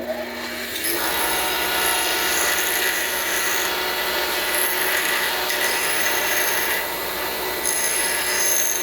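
Grinding wheel running with a cut spacer held against it, a steady machine whine with a grinding hiss that swells about a second in and shifts as the piece is worked.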